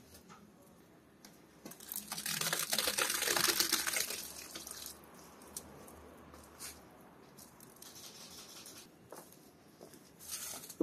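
Blended tomato and pepper purée poured from a bucket into a large pot, a wet gush lasting about three seconds, with a few scattered clicks and knocks around it.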